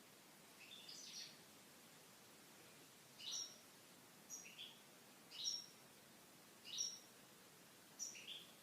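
Faint bird chirps: short high calls, each dropping in pitch, repeating about every one to one and a half seconds.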